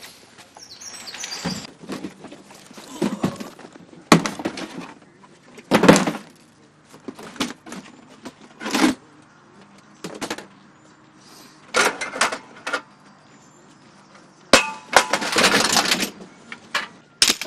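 Knocks, clanks and clatter of sound-system gear, such as speaker stands and boxes, being carried and set down: a dozen or so separate hits, with a longer burst of rattling near the end.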